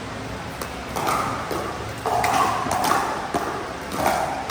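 Pickleball paddles hitting the hard plastic ball during a rally: a string of sharp pocks, several in a row about half a second to a second apart.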